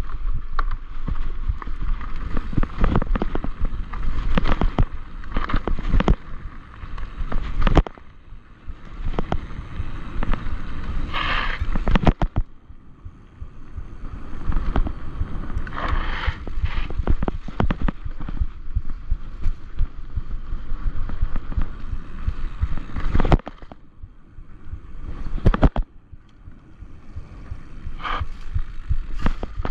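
Enduro mountain bike descending rocky singletrack: tyres crunching over dirt and loose stones, with frequent knocks and rattles of the bike jolting over rocks, a low rumble throughout, and a few brief harsher scraping bursts.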